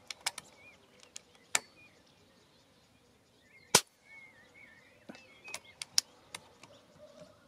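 Reximex Throne Gen2 PCP air rifle firing a 33-grain slug: one sharp shot a little past halfway. Fainter clicks are scattered around it, and small birds chirp.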